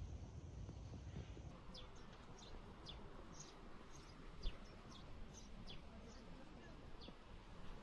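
A small bird chirping repeatedly: short, quick, high chirps that each fall in pitch, about two or three a second, starting a moment in. A single soft thump about halfway through.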